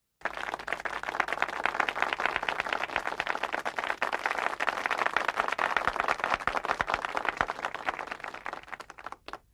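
Audience applause: many hands clapping, thinning out near the end into a few scattered claps.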